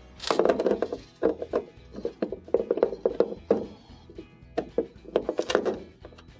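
A Phillips screwdriver backing screws out of a washer's plastic console cover, in several quick rasping bursts of clicks as each screw is turned. Quiet background music runs underneath.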